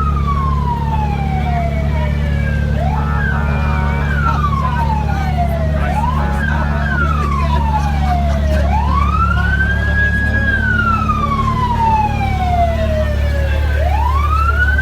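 Electronic siren on an emergency vehicle wailing, its pitch rising quickly, holding briefly, then falling slowly, over and over, with two choppier bursts early on. A steady low engine rumble runs underneath.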